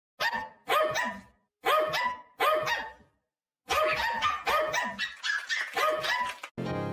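A dog barking: two pairs of barks, then a quicker run of about seven barks. Music starts just at the end.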